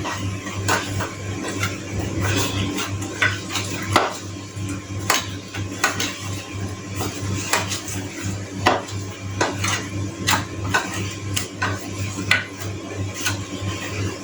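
Irregular clinks and knocks of kitchenware, a few a second, as raw fish pieces are mixed with salt and turmeric in a bowl, over a steady low hum.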